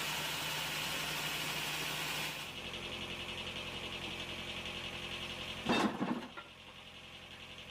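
Sawmill machinery running with a steady, engine-like noise that drops to a quieter hum about two and a half seconds in. A single loud thump comes near six seconds.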